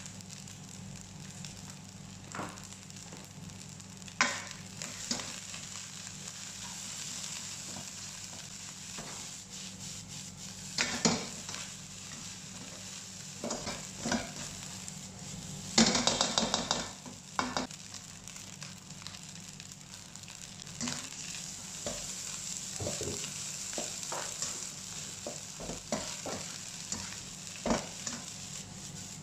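Egg fried rice sizzling in a nonstick wok as a spatula stirs and tosses it. Sharp scrapes and knocks of the spatula against the pan come every few seconds, with a quick run of strokes about halfway through.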